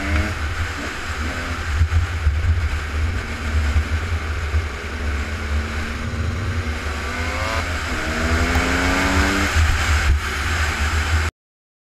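Off-road race car engines running and accelerating, the engine note climbing in pitch more than once, over a heavy low rumble. The sound cuts off abruptly near the end.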